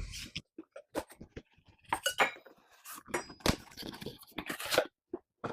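A hardwired smoke detector's package being opened and its contents handled: an irregular run of small clicks, taps and brief rustles as parts and papers are taken out and set down.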